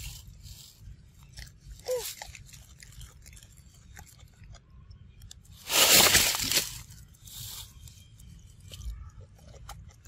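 A macaque chewing and biting food with small crunching clicks, and a louder, noisier crunching stretch about six seconds in that lasts about a second.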